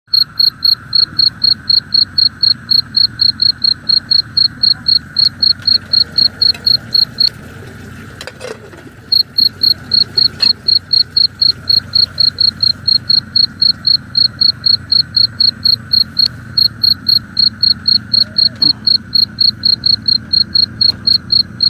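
Cricket chirping in a fast even rhythm, about four to five chirps a second, with a break of about two seconds a third of the way in. Under it runs a steady background drone.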